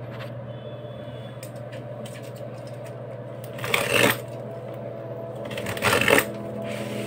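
Cardboard parcel being handled as a box cutter works at its packing tape: two short scraping, rustling sounds, about 4 and 6 seconds in, over a steady low hum.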